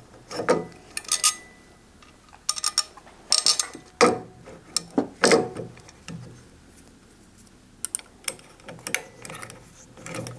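Hex key turning bolts on a CNC's metal Z-axis slider and router mount: irregular metal clicks, knocks and short ratchety rattles, with the sharpest clicks about four and five seconds in.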